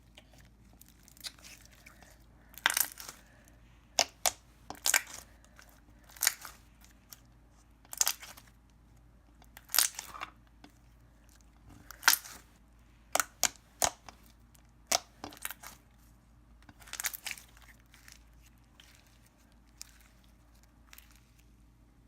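Metallic clicky slime being stretched and pressed by hand, giving irregular sharp clicks and pops about once a second.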